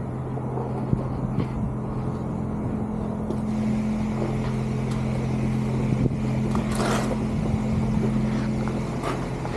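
A motor or engine running steadily with a low, even hum. A few light clicks are heard, and a short hiss comes about seven seconds in.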